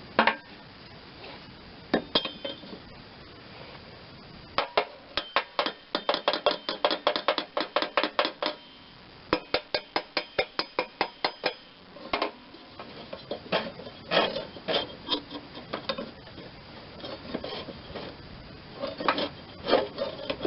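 Hammer striking the steel pulley and spindle of a mower deck: metal-on-metal taps in two quick runs of about five a second, with scattered single knocks, to work a stuck pulley loose.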